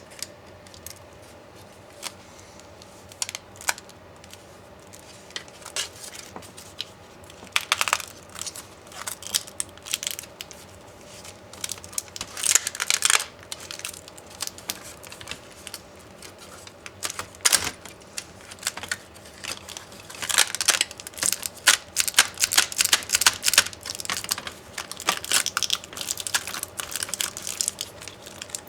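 Hand-disassembly of an MSI GT72VR laptop: small clicks, taps and scrapes of tools and loose plastic and metal parts being worked and handled. Scattered single clicks at first, then dense runs of clicking and scraping from about a quarter of the way in.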